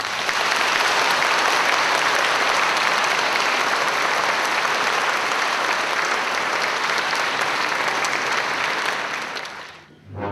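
Theatre audience applauding, an even, steady clapping that fades out near the end.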